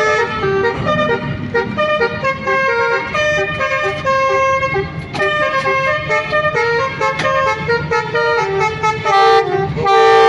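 Basuri-type telolet multi-tone bus horn playing a melody, a quick run of held notes stepping up and down in pitch, getting louder near the end.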